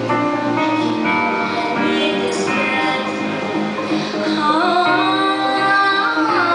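A woman singing live into a microphone over backing music, her voice coming in with held, sliding notes about halfway through.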